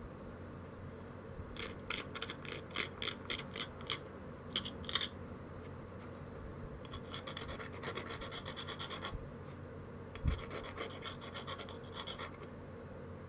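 Abrader stone rubbed back and forth along the edge of an obsidian biface, grinding the edge to prepare platforms for flaking: gritty scraping in four bursts of quick strokes, several a second, with short pauses between. A single low knock comes about ten seconds in.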